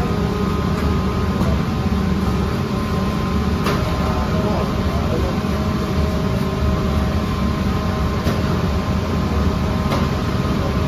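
Gas-fired rotating bread oven running: a steady burner rumble and motor hum, with a few sharp clicks.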